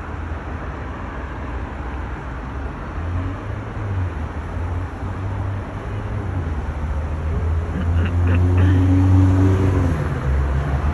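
Road traffic with a low, steady hum from motor vehicles; one vehicle's engine grows louder and passes about eight seconds in.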